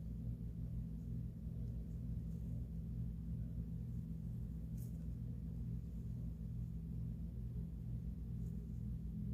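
Electric sewing machine running steadily, a low, even hum stitching the vinyl strap, with a faint click about five seconds in.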